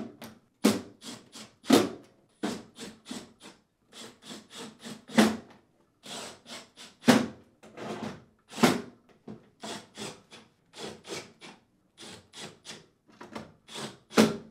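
Cordless driver running screws into a dishwasher door's stainless inner panel: a quick, irregular series of short, sharp bursts and knocks, about three a second.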